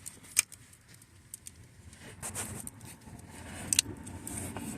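A few scattered sharp clicks and light knocks, the loudest two about half a second in and near the end, over a faint low background rumble.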